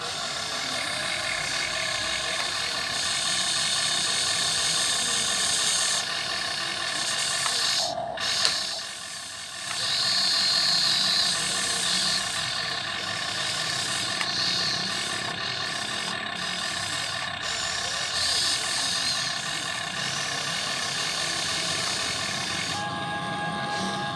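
RC excavator's small electric motors and plastic gearboxes whirring as the model works, a steady geared whine that shifts in pitch and level every few seconds, with a short drop in level about eight seconds in.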